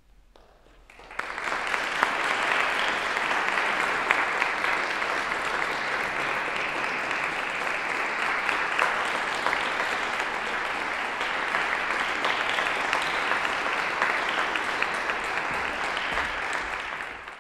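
Audience applause that begins about a second in, goes on steadily, and cuts off suddenly at the very end.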